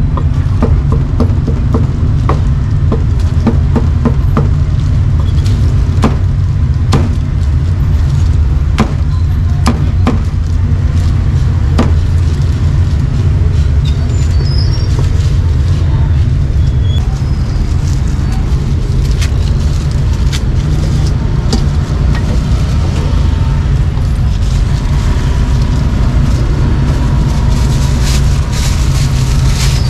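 Sharp knocks of a cleaver chopping meat on a wooden block, a quick run of them at first and then one every second or so, over a loud steady low rumble.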